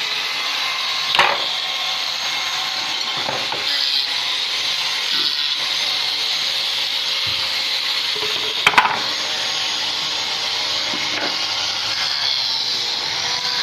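A power tool working wood, running steadily with a hissing whine, with two sharp knocks of wood, about a second in and near nine seconds, the second the louder.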